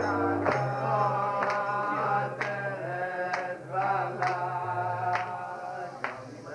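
Acoustic guitar strummed in a steady rhythm, about two strokes a second, with a man singing a melody over it.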